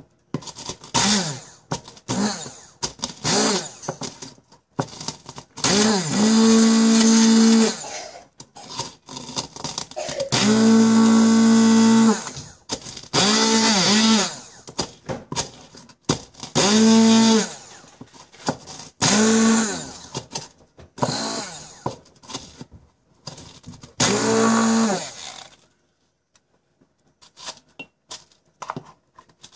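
Hand-held stick blender pulsed on and off in a series of bursts, grinding snack crackers in a plastic cup; each time its motor whines up to speed and winds down, the longest bursts lasting a couple of seconds. It stops a few seconds before the end.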